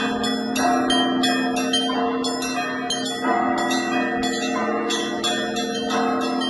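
Russian Orthodox church bells rung by hand (zvon): several bells of different pitch struck in a fast, steady pattern, about three strikes a second, over the sustained ringing of the larger bells.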